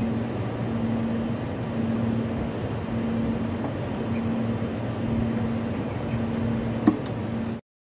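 Steady mechanical hum of air-conditioning outdoor unit machinery, with a low tone that pulses about once a second. A single sharp click comes near the end, and the sound then cuts off abruptly.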